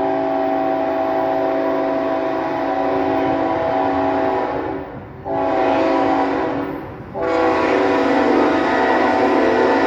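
Norfolk Southern locomotive's multi-chime air horn sounding a long blast, a short blast, then another long blast, over the low rumble of the moving train.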